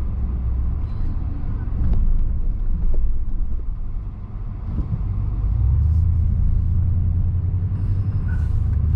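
Low, steady road and engine rumble heard inside a pickup truck's cabin while driving; it dips briefly a little before halfway, then grows heavier.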